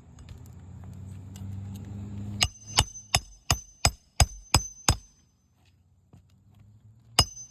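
A hammer striking roofing nails into asphalt shingles: eight quick metallic strikes at about three a second, each with a high ring, then two more near the end. A low steady rumble comes before the strikes.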